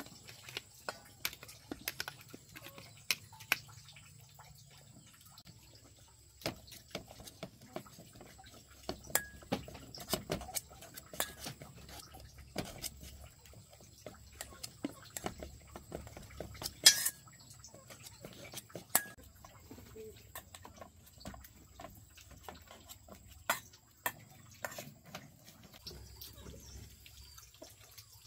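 Kitchen work with water: irregular clinks and knocks of dishes and utensils among dripping and splashing water, with one sharper, louder clink about seventeen seconds in.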